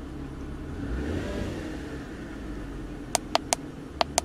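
Car engine idling, heard from inside the cabin, is revved once about a second in, rising in pitch and then falling back to idle. Near the end come about five sharp clicks in quick succession, buttons pressed on the handheld scan tool to scroll down its live-data list.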